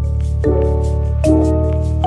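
Background music: piano or keyboard chords changing about every second over a steady bass and a light ticking beat.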